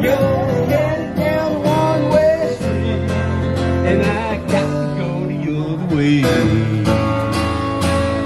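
Acoustic guitar music: strummed chords with a singing voice over them.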